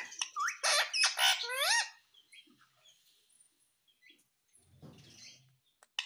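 Indian ringneck parakeet calling: a quick string of loud squawky calls that rise and fall in pitch over the first two seconds, then a few faint short chirps.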